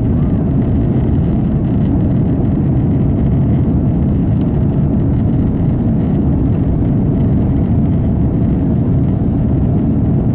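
Airbus A330-200 jet engines and rushing air heard inside the passenger cabin: a loud, steady, deep rumble with a faint hum above it.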